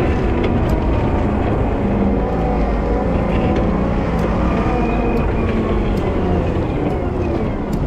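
Volvo wheel loader's diesel engine running steadily under load while plowing snow, with whining tones that rise and fall as it works.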